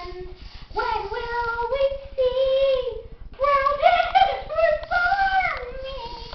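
A young girl's high voice singing wordlessly in long, wavering notes that slide up and down, with short breaks between them.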